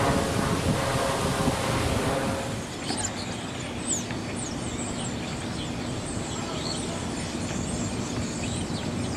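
Street ambience: a vehicle passing with a rumble that drops away about two and a half seconds in, followed by birds chirping over a steady outdoor hiss.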